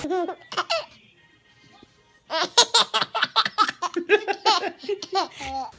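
A baby laughing in quick bursts: a couple of short laughs at the start, a pause of about a second, then a long run of rapid giggles from about two seconds in.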